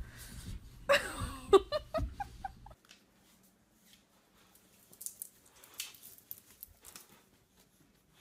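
Two dogs scuffling in play, with a short burst of laughter breaking into quick 'ha-ha' pulses about a second in. After that there are only faint clicks and rustles.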